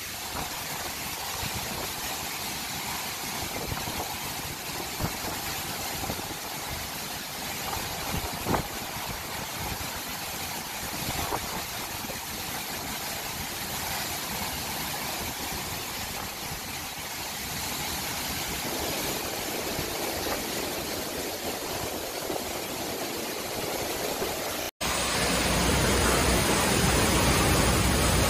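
Tropical-storm wind and heavy rain battering the microphone, a steady rushing noise with a few faint knocks. Near the end it cuts abruptly to a louder, deeper rush of gale wind and waves breaking against a seawall.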